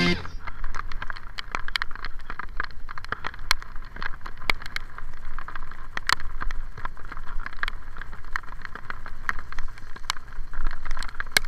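Bicycle ridden along a rain-soaked road: a steady low wind rumble and the hiss of tyres on wet tarmac, with frequent sharp clicks and knocks.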